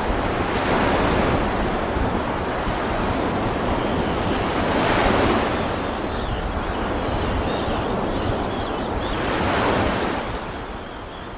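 Sea waves washing ashore, surging three times about four seconds apart over a low rumble, then fading out near the end.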